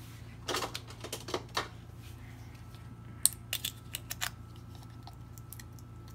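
Short plastic clicks and taps from handling a bottle of sublimation ink and a syringe. They come in a cluster in the first two seconds and another about three seconds in, over a low steady hum.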